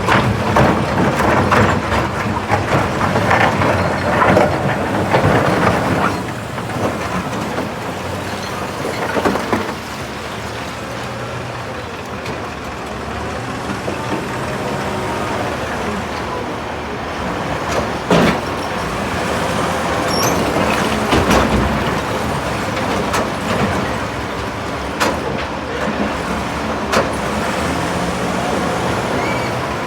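Caterpillar 966F wheel loader's diesel engine running, with rocks clattering and knocking as they are loaded. The clatter is busiest in the first few seconds, then single sharp knocks come now and then, the loudest a little past halfway.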